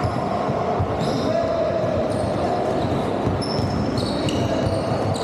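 Basketball game on a hardwood court: the ball bouncing and trainers giving short high squeaks on the floor, with voices of players and spectators in the hall.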